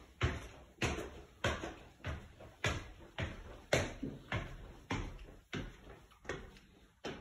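Footsteps climbing the last few wooden stair treads and walking on across the upstairs hall: an even thud a little under twice a second, about a dozen steps, the last about seven seconds in.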